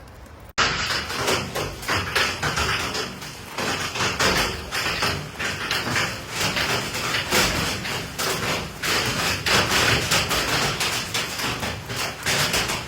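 Hail pelting a hard surface: a dense, irregular clatter of impacts that starts abruptly about half a second in and keeps up in uneven surges.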